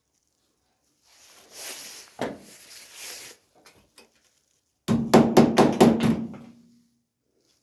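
A scraping noise for about two seconds, then a quick run of about seven hammer blows on sheet steel, with a metallic ring that hangs on after the last blow.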